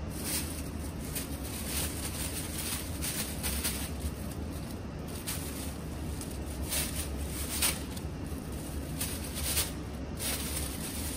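Thin plastic shopping bag crinkling and rustling in irregular bursts as it is handled and hooked onto a plastic handle, over a steady low hum.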